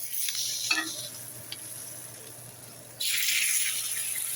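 Butter-fried flour tortilla tacos sizzling on a flat-top griddle, with a brief scrape in the first second and the sizzle jumping louder about three seconds in.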